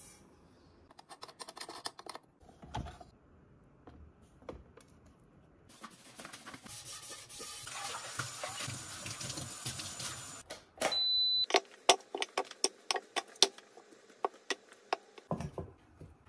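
Light knocks and clicks from handling an electric cooker's non-stick inner pot, then tap water running into the pot as it is rinsed in a stainless steel sink for about five seconds. Shortly after the water stops comes a brief beep, then a run of sharp clicks and knocks, two or three a second, as metal tongs set food into the pot.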